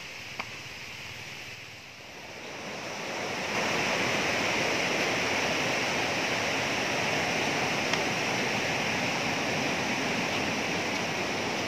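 Water rushing over the rocks of a stream, a steady hiss that grows louder over the first few seconds and then holds level.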